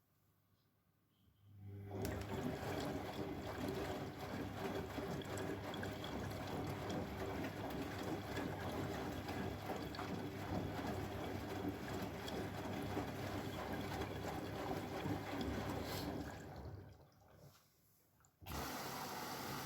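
Bosch Maxx washing machine taking in water: a steady rush of water with a low hum starts about two seconds in, fades away near the end, then starts again abruptly.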